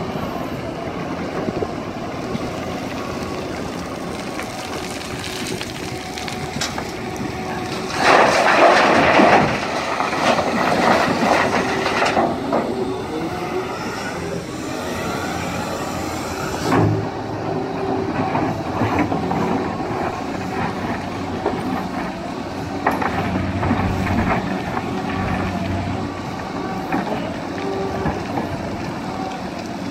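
Liebherr R 966 hydraulic excavator's diesel engine running steadily under load through a dig-and-load cycle. Louder bursts of scraping and clattering come from the bucket working earth and rock, the loudest about eight seconds in, with a single heavy thump near the middle.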